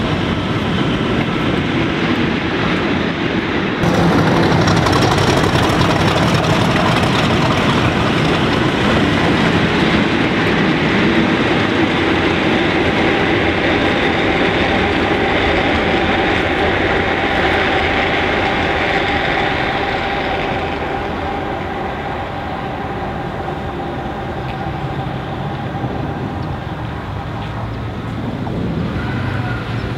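A convoy of English Electric diesel locomotives (Class 40, Class 20 and a Class 37 at the rear) runs past at speed: engines running, wheels on the rails, with a few steady high tones over the engine noise. The sound fades from about twenty seconds in as the convoy draws away.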